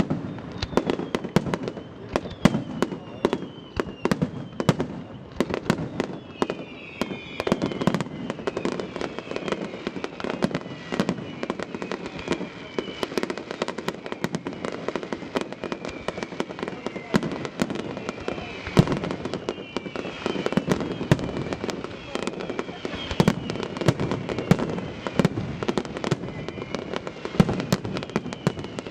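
Fireworks finale: a dense, continuous barrage of bangs and crackling bursts, with many falling whistles mixed in.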